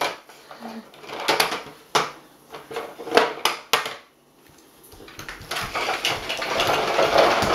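Plastic toy dump truck knocking and rolling on a tile floor: several sharp knocks in the first half, then a rolling rattle that grows louder over the last few seconds.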